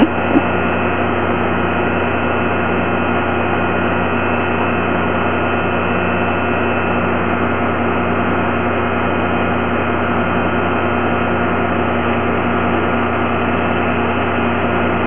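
Steady machine-like hum: several unchanging tones held over a constant hiss.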